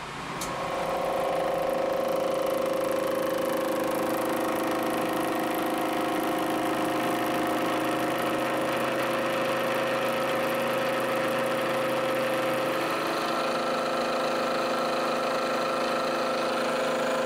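Milling machine spindle starting up and then running steadily, with several held tones, as an indexable face mill cuts flats on a round steel part. Near the end a higher note and more hiss join in.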